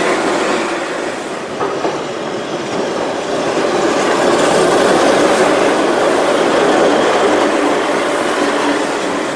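Keihan Ishiyama-Sakamoto Line trains running on street track. The first fades as it pulls away, then a second approaches and passes close, loudest as it goes by, with wheel and rail noise.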